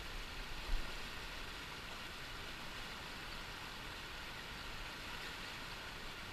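Steady rush of river rapids close by, with a brief low bump just under a second in.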